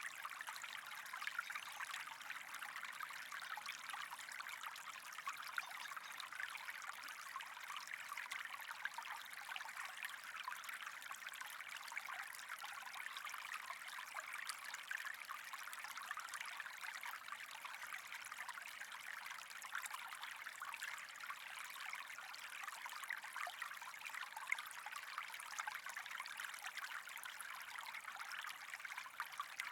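Steady trickling water with small irregular splashes.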